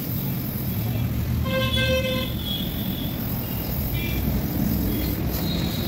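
Steady roaring hiss of a gas brazing torch flame. A vehicle horn honks once, briefly, about one and a half seconds in.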